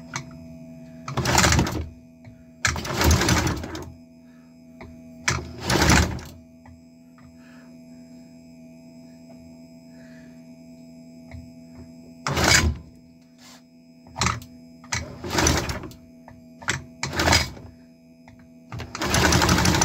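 3D-printed V-twin fuel-injected engine turned over in about eight short cranking bursts without catching, over a steady hum. It fails to start for lack of compression, which the builder puts down to bad piston rings.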